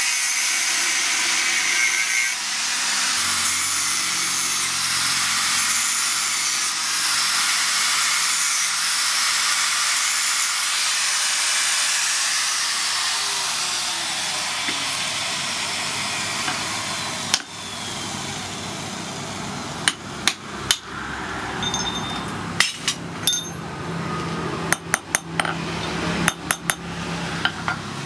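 A power tool grinding metal runs steadily for most of the first two-thirds, then stops. Scattered sharp metal hammer knocks and clinks follow, irregular rather than a steady forging rhythm.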